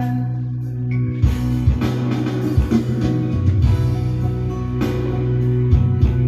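Instrumental break of a karaoke backing track: guitar over a steady bass line, with a drum beat striking about once a second.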